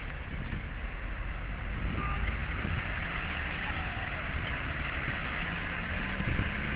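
Road traffic on a wet road, a hiss of car tyres swelling and fading, over uneven low rumble of wind on the microphone of a moving bicycle.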